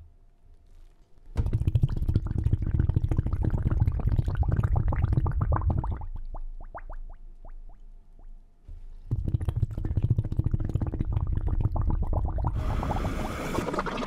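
Recorded right whale calls. There are two long runs of rapid, rasping pulses with a few short rising calls between them, and a burst of hiss near the end.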